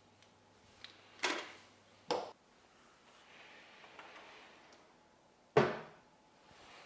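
Two short clattering knocks, then about five and a half seconds in the Ninja Foodi Max's hinged air-crisp lid is swung shut with a loud clunk that dies away quickly.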